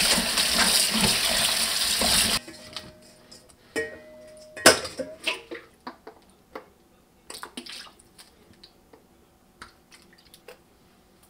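Tap water running onto sliced lotus root in a stainless steel colander as hands rinse the slices; the water cuts off suddenly about two seconds in. Then quiet clicks and knocks of a plastic bottle and a metal measuring spoon over a pot, with one louder knock near the middle.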